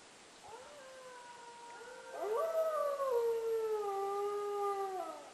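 Wolves howling: several long, drawn-out howls overlap, each sliding slowly down in pitch, louder from about two seconds in.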